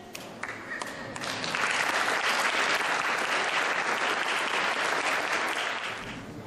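Audience applauding: a few scattered claps at first, building into full applause about a second in, then fading near the end.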